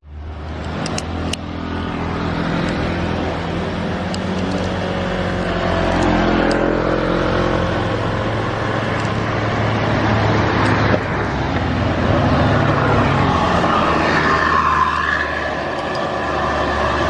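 Diesel bus engine running steadily under load as it climbs an incline. The engine note stays fairly even, growing slightly louder towards the middle.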